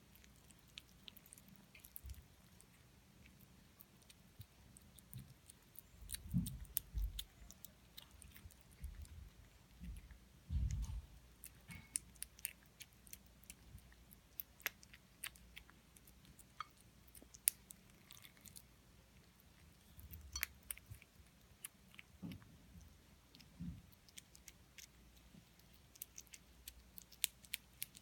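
Cats eating from a dish: chewing with many small, sharp clicks and a few soft low thumps.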